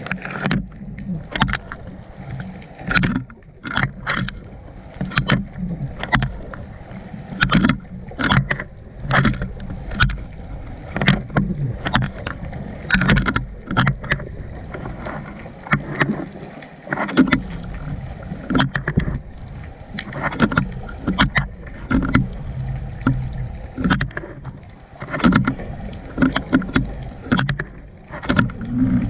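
GoPro in its waterproof housing lowered underwater: irregular sharp knocks and clicks, about one or two a second, over a steady low rumble of water.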